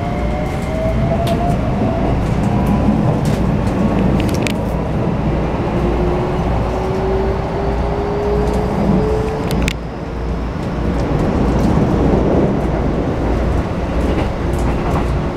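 Keikyu New 1000 series electric train heard from inside the car while running and picking up speed: the VVVF inverter and traction motors give a rising whine over the steady rumble of the wheels, with scattered sharp clicks. A first whine rises at the start and a lower one climbs slowly from about six to ten seconds in.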